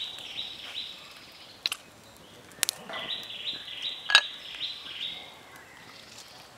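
A bird calls a quick run of identical high notes, about three a second. It breaks off for a couple of seconds and then starts again. A few sharp clicks fall between and over the calls, the loudest about four seconds in.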